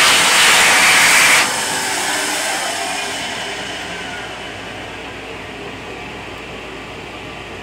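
Wall-mounted stainless-steel hand dryer in a train restroom blowing loudly, then shutting off suddenly about one and a half seconds in. Its motor winds down over the next few seconds, leaving the steady hum of the railcar.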